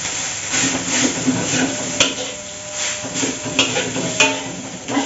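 Fried rice being stir-fried in a pan: a spatula scraping and knocking against the pan over a steady sizzle, with a few sharp clinks.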